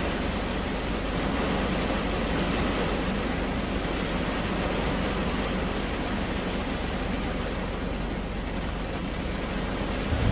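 Steady rain pattering on a car's roof and glass, heard from inside the car as an even hiss.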